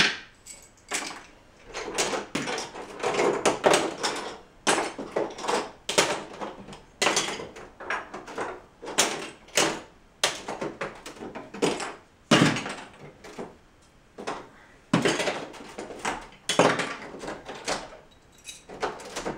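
Plastic Lego bricks clicking and clattering in irregular bursts as a large Lego model is pulled apart by hand and the pieces are set down on the table.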